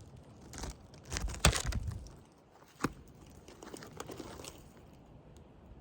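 An old asphalt roof shingle being handled: irregular crinkling and crunching with a few sharp cracks, the loudest cluster about a second and a half in and a single sharp click near the middle.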